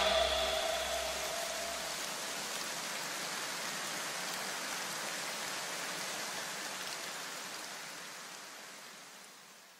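Steady, even hiss with no pitch, like rushing air or rain, fading away over the last few seconds.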